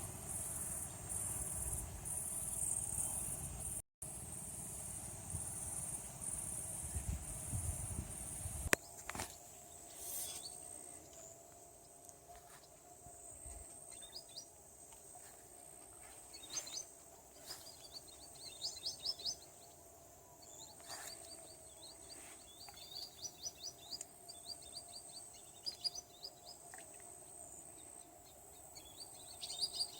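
Outdoor nature ambience: insects droning with a pulsing high buzz and a low rumble for the first third. Then it drops quieter to a thin steady insect whine under repeated quick bird chirps and short trills.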